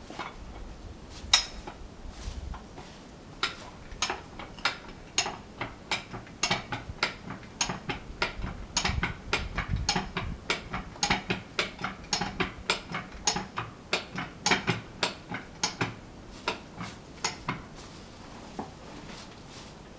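Old railroad track jack worked by hand, its ratchet and pawl clicking and clanking in a quick series of sharp metal strokes, about two or three a second, as it slowly shifts a heavy oak log. The clanking starts a few seconds in and stops a few seconds before the end.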